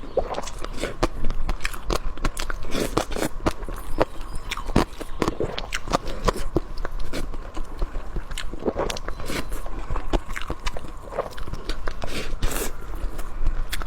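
A person chewing and biting food close to the microphone, with a quick, irregular run of crisp crunches and wet clicks.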